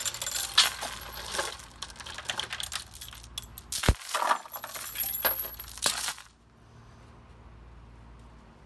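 Heavy steel lifting chain rattling and clinking against an engine block as it is unwrapped and pulled off, with a dull thump about four seconds in. The rattling stops after about six seconds.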